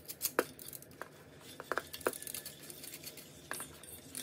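Metal squeeze-handle flour sifter being worked over a steel mixing bowl: its handle and wire agitator click and rasp in short irregular strokes, about half a dozen sharp clicks, as flour is sifted through the mesh.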